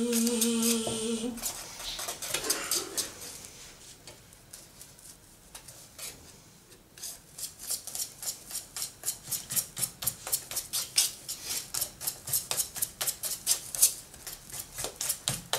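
Batter being beaten by hand in a stainless steel pot, a utensil clicking against the pot's side. The stirring is soft and sparse at first, then about seven seconds in it turns into fast, even strokes, about four a second.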